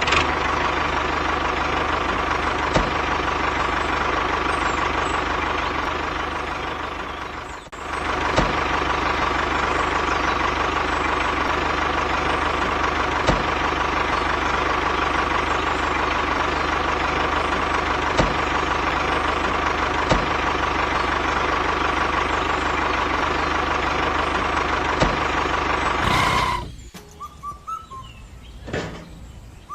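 A small motor running steadily with a constant whine. It stops for a moment about a quarter of the way in, starts again, and cuts off near the end. Faint bird chirps follow.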